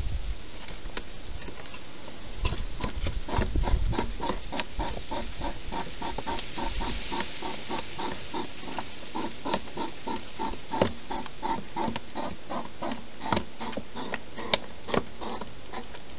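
Hedgehog feeding at a bowl: quick, steady wet smacking of about three strokes a second, with a few sharper clicks among them and some low thumps in the first seconds.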